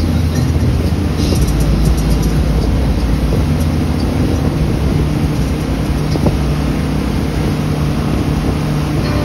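Towing boat's engine running steadily under way, with the rush of water from its wake and wind buffeting the microphone.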